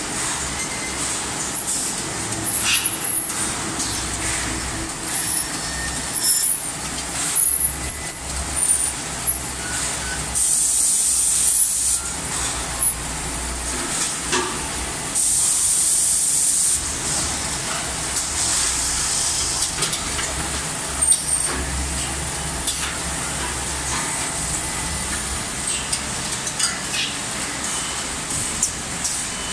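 Automatic milk powder bag packing machine running: a steady low hum with scattered clanks and clicks from its grippers and conveyors. Two hisses of air, each about a second and a half long, come about ten and fifteen seconds in.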